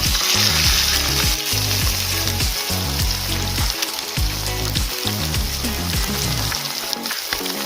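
Food frying in a hot pan, a steady loud sizzle, with background music underneath that drops out near the end.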